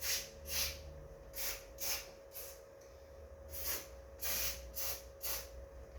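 Aerosol can of lubricant sprayed in short hissing bursts onto garage door rollers, about nine quick squirts with brief gaps between them.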